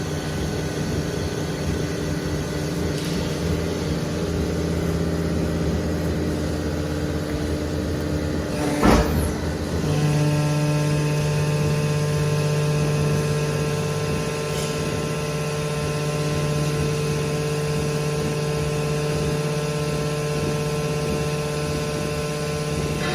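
Hydraulic power unit of a 130-ton scrap metal baler running, a steady hum with a whine of several held tones. About nine seconds in there is a short sharp burst, and right after it the tone of the hum changes and holds steady again.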